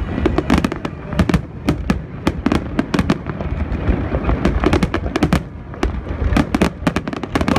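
Fireworks display: a dense barrage of aerial shell bursts, many sharp bangs a second with no let-up.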